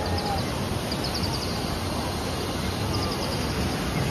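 A small bird chirping in quick, high trills three times over a steady rushing background noise.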